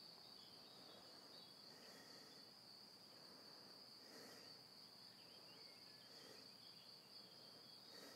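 Near silence, with a faint, steady, high-pitched chirring of crickets and a few faint soft swishes.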